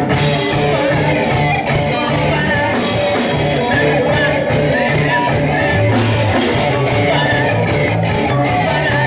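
Live rock band playing loudly: electric guitars, bass guitar and drum kit, with a singer's voice over them.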